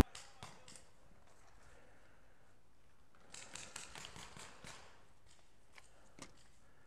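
Faint sharp pops of paintball markers firing: a few at the start, a quick run of about eight in the middle, and a couple more near the end.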